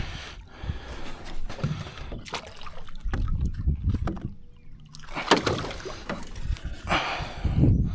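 Water splashing and sloshing against the side of a small fishing boat in irregular surges, with some low rumbling.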